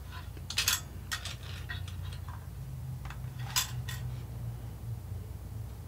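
Scattered light clicks and knocks of hard plastic being handled as the rubber boot and bulb are taken off a 1999 Toyota 4Runner headlight housing, the sharpest click a little past halfway, over a low steady hum.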